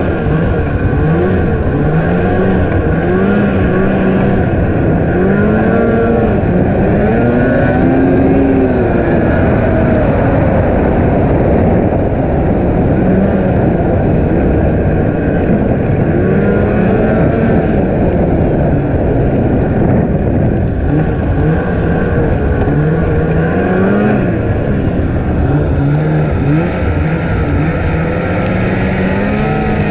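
Snowmobile engine running under way, its pitch repeatedly rising and falling as the throttle is worked, over a steady rushing noise.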